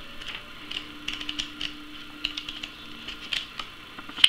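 Pages of a small paper instruction booklet being leafed through by hand, a string of short paper flicks and rustles, with one sharper snap near the end.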